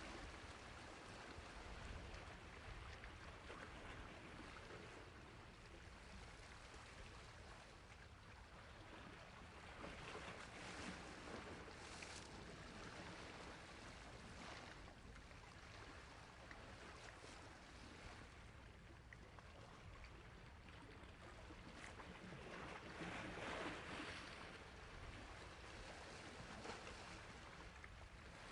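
Faint wash of sea waves on a shore: a steady hiss of water that swells several times, the strongest swell a few seconds before the end.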